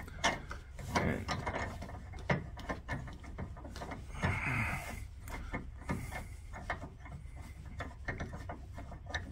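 Folding screw-on tow hook being unscrewed by hand from the threaded tow socket in a car's front bumper: a run of irregular small metallic clicks and rubbing as the threads and hook parts turn.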